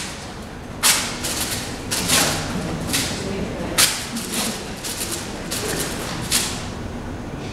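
Sharp swishing strokes, about ten of them in an irregular rhythm, each dying away quickly, made with hand-held objects by the performers.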